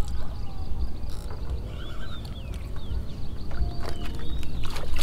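A hooked fish splashing at the water surface near the end as it is reeled in to the landing net, with a few short high chirps a couple of seconds in and a steady low rumble underneath.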